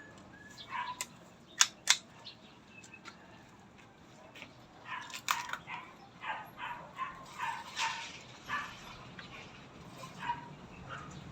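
A dog barking repeatedly in the background, with two sharp clicks close together about a second and a half in.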